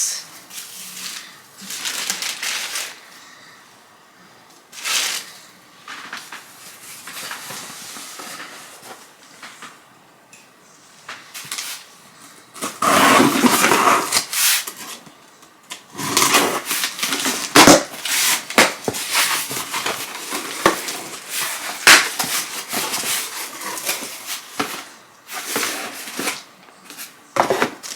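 A cardboard box being opened and unpacked by hand: irregular rustling, crinkling and tearing of packaging with sharp knocks and clicks as items are handled, busiest in the second half.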